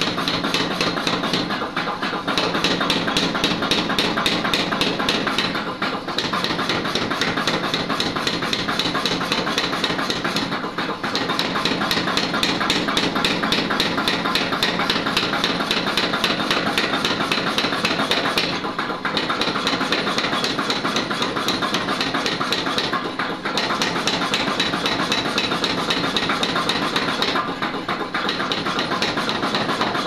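A 5 kg power hammer pounding a red-hot iron bar in a fast, continuous run of blows as the bar is drawn out into a chisel, with the machine running underneath. The blows let up briefly every few seconds.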